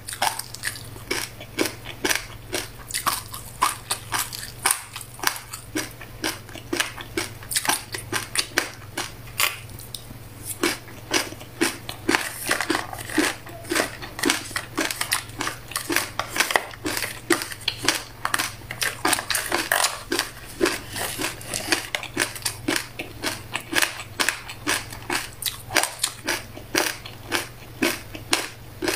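Crunchy buckwheat groats being chewed: a dense, continuous run of small crisp cracks, several a second.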